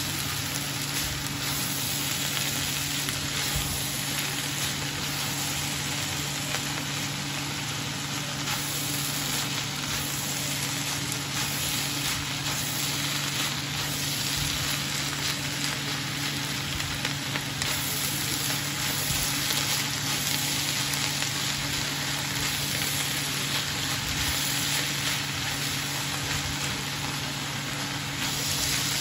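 Shredded bamboo shoots and onions sizzling steadily in a frying pan, with a wooden spatula stirring them through. A steady low hum runs underneath.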